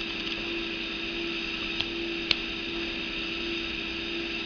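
Steady electrical hum and hiss of the recording, with two light clicks about half a second apart near the middle from handling the Leatherman Squirt PS4 multitool.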